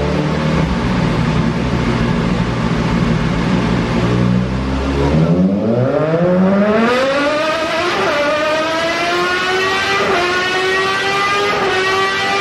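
Suzuki GSX 1000 inline-four motorcycle engine on a chassis dynamometer: a low steady rumble for about five seconds, then a hard acceleration run. The engine pitch climbs steeply, then more slowly, with three brief dips as the rider shifts up through the gears.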